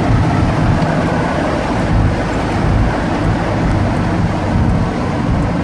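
1955 Fargo truck cruising on the highway, heard from inside the cab: a steady low engine drone mixed with road and wind noise.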